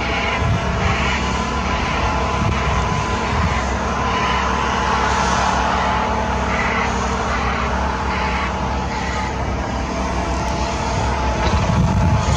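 CAT 160M motor grader's diesel engine running steadily as the grader plows deep snow, a continuous drone that grows a little louder near the end as the machine comes closer.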